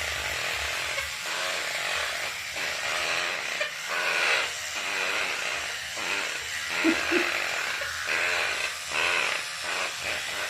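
Toothbrush bristles scrubbing back and forth against a Quaker parrot, a scratchy hiss in uneven strokes with short breaks between them.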